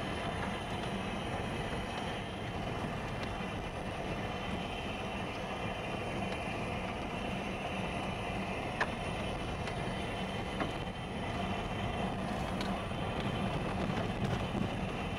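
Car driving on a gravel road, heard from inside the cabin: a steady rumble of tyres on gravel with a low engine hum, and a couple of light clicks about two-thirds of the way through.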